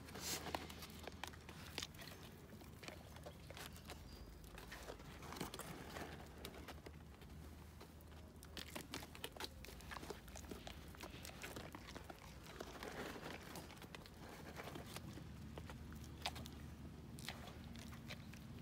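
Deer eating from a hand at close range: quiet crunching and chewing, with scattered small clicks.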